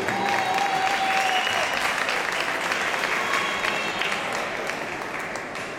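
Audience applauding, with a held voice-like tone over it in the first second and a half; the clapping dies away gradually toward the end.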